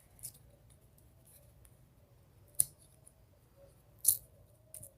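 Small handheld pencil sharpener's blade shaving a wooden pencil in a few separate short, sharp scrapes, two of them louder than the rest. The pencil is hard to turn in the tiny sharpener.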